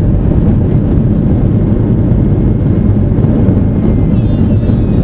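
Inside the cabin of an Airbus A320 rolling along the runway after landing: a loud, steady rumble from the engines, the wheels and the airframe. A faint high whine comes in near the end.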